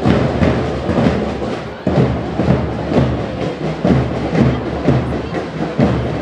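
A school marching band's drums playing a steady marching beat, with a brief dip just before the two-second mark before the beat picks up again.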